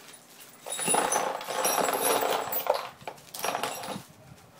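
Loose steel bolts, nuts, set screws and Allen wrenches poured from a plastic bag into a cardboard box, clattering and clinking for about two seconds from a second in, with a shorter rattle near the end.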